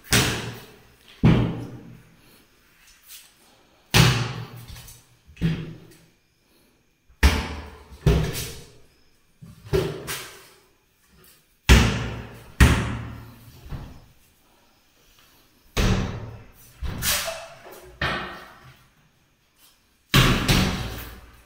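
Plastic-wood cabinet and wardrobe doors being swung open and banged shut over and over. The bangs are sharp, each with a short ringing tail, and come at irregular intervals of one to a few seconds.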